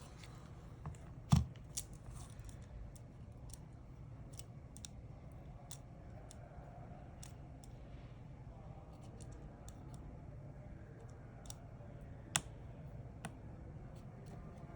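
Small sharp clicks and taps, scattered and irregular: flex-cable connectors being pressed back onto an iPhone XR's logic board and tools touching the phone. Two clicks, one just over a second in and one about twelve seconds in, are louder than the rest.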